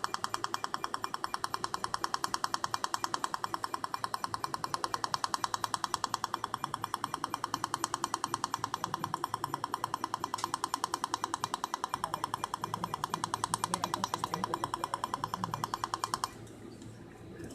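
Fotona Er:YAG laser handpiece firing on the soft palate in snoring treatment: a rapid, even train of sharp clicks that stops about sixteen seconds in.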